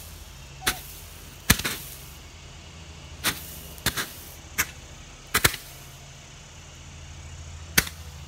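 Consumer firework (Yellow Bees) going off, with about eight sharp bangs at uneven intervals, one or two a second, the last near the end. A steady low hum runs underneath.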